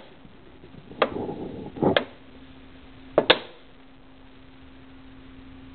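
Crumpled plastic two-liter bottle popping and crackling as the cold air inside warms and it re-expands: three sharp pops about a second apart, the last a quick double, with softer crinkling after the first.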